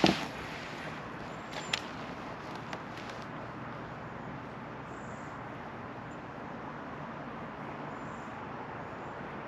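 One sharp knock right at the start and two lighter clicks over the next few seconds, over a steady, even hiss of outdoor air and water noise on a small action-camera microphone.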